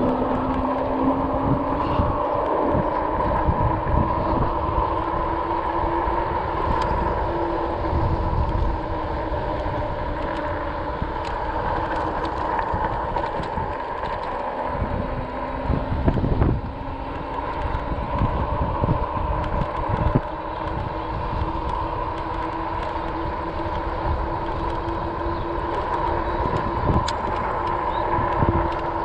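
RadRover electric fat-tire bike on the move: a steady whine from the hub motor that steps up in pitch a couple of times as speed changes, over constant tyre hum and gusts of wind rumble on the microphone. There are two sharp thumps about halfway through.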